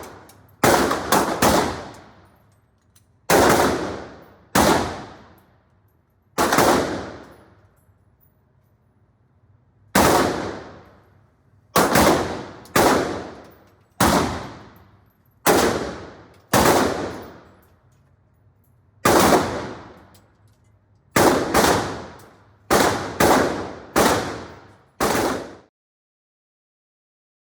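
Gunshots at a shooting range: about eighteen single shots fired one at a time at an uneven pace, mostly a second or two apart, each ringing out with a long echoing tail.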